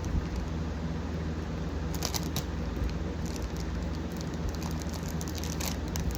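Plastic and cardboard packaging crinkling and rustling in short scattered bursts as a blind box is opened, over a steady background hum from a fan and air conditioner.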